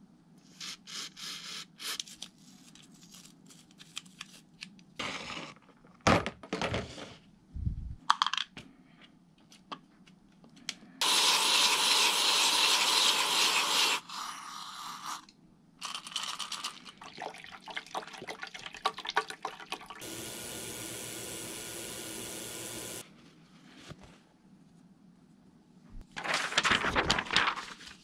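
Aerosol spray can with a straw nozzle spraying cleaner onto small metal reel parts in several bursts, the longest and loudest lasting about three seconds near the middle. Small parts click and rattle between the bursts.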